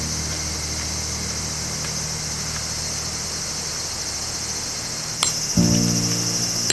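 Insects chirring steadily in a high, continuous band, with soft background music fading low; about five seconds in a click sounds and the music chords come back in.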